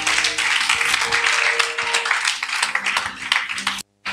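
Church congregation clapping and applauding over background music with held notes. The sound drops out abruptly for a moment near the end.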